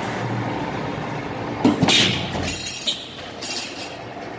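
Cincinnati mechanical squaring shear making a cutting stroke over its steady running noise. Under two seconds in there is a sudden loud crash, then a second hit right after and metal ringing for about a second. Another short burst follows near the end, as the blade shears the sheet and the cut piece drops.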